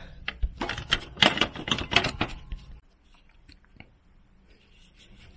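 Handling noise: a quick run of clicks and rattles for about three seconds, then a few faint scattered clicks.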